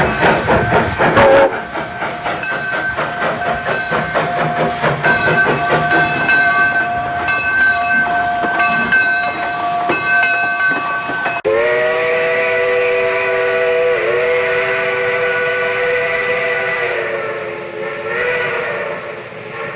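Steam locomotive working: heavy exhaust blasts at first, then a steady run of chuffs with a faint high tone over them. About halfway through, the sound cuts abruptly to a steam whistle sounding one long chord of several notes, with a brief dip in pitch and a wavering near the end.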